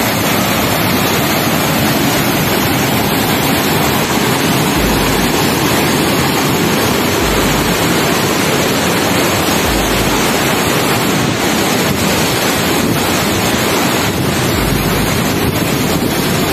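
Loud, steady rush of a swollen, flooding river churning past a bridge, mixed with wind buffeting the microphone in a few low thumps.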